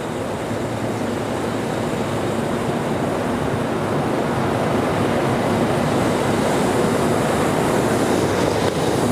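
Steady rushing roar of large industrial air movers blowing, growing slightly louder.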